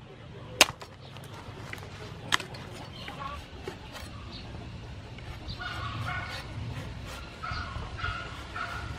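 A cleaver chopping into a whole palm fruit on a wooden chopping board: a sharp chop about half a second in and another about two seconds later, then softer cuts as the husk is shaved off. From about halfway, a high whining animal call repeats in the background.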